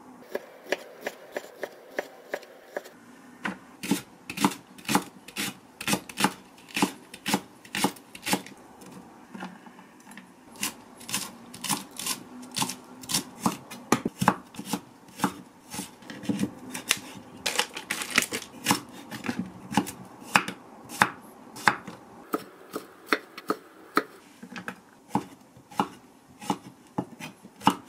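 Chef's knife chopping carrot and zucchini on a wooden cutting board: a steady run of sharp knocks, about two to three strokes a second, growing louder a few seconds in.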